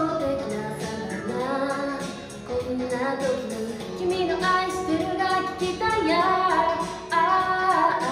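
A young female voice singing a melody over a backing track with a steady beat.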